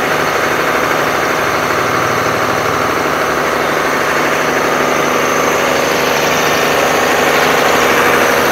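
Tata six-cylinder diesel engine of an 82 kVA open-frame generator set running steadily.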